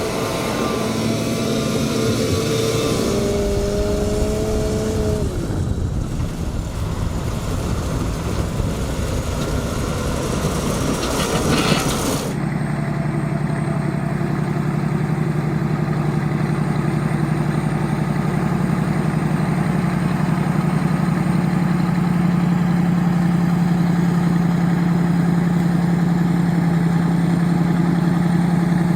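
Heavy diesel tractor engines. At first there is a busy, noisy engine sound with a shifting whine. Then, after an abrupt cut about twelve seconds in, a diesel idles with a steady low hum.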